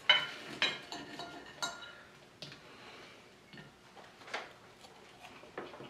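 Knife and fork clinking and scraping against a ceramic dinner plate while cutting a burger, a handful of sharp clinks at irregular intervals.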